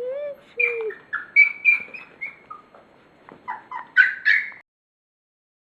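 A dog whining and yipping in a run of short, high-pitched cries that cut off suddenly near the end.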